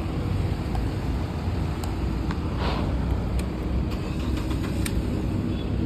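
Motor vehicle engine and road noise: a steady low rumble with a faint steady hum, a few light clicks and a brief hiss about two and a half seconds in.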